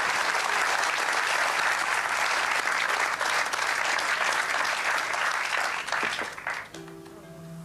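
Studio audience applauding loudly, dying away about six and a half seconds in. Soft sustained music notes come in near the end.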